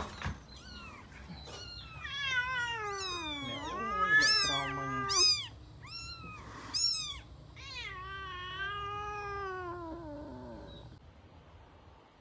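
Kitten meowing: a run of long, drawn-out calls that slide up and down in pitch, with a few short high cries between them. The calls stop about eleven seconds in.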